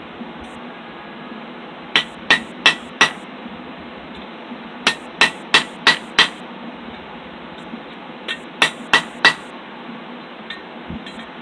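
Blacksmith's hammer striking red-hot steel rod on a hot cutoff at the anvil, splitting the flattened end of a roasting stick. Three quick runs of four or five ringing blows, about three a second, over a steady low hiss.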